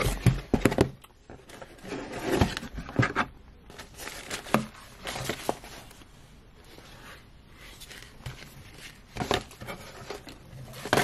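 Packaging being handled inside a cardboard box: irregular knocks and scrapes with rustling plastic as plastic-sleeved packs of braiding hair are taken out. The loudest knocks come in a quick cluster in the first second.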